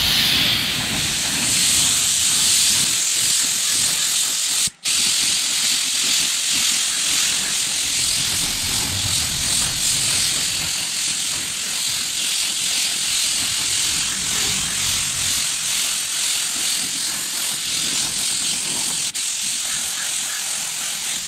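Compressed-air gravity-feed spray gun hissing steadily as it sprays clear coat, breaking off for an instant about five seconds in.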